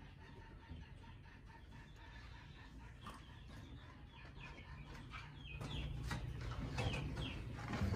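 Young red junglefowl cockerel practising its crow, loudest from a little past halfway: a rough, unformed crow of the kind that breaks off abruptly ('đồng pha ngắt ọc').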